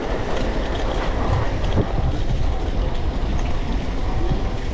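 Steady rumble and rattle of a bicycle riding over the road, heard through a GoPro's microphone, with a few small clicks and ticks from the bike.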